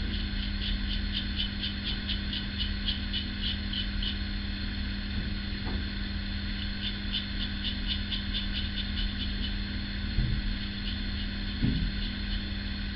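A single-edge safety razor blade scraping through lathered stubble in quick short strokes, about four or five a second, in two runs with a pause between them, over a steady background hum.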